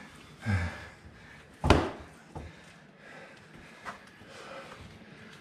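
Knocks and scuffs of knife sparring with training knives: a dull thud about half a second in, one sharp loud knock a little under two seconds in, and a few faint knocks after it.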